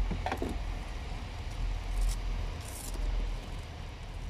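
Handling sounds of unpacking a plastic tool box: a battery charger set down on wooden boards, then a light knock about two seconds in and a brief rustle of papers shortly after, over a steady low rumble.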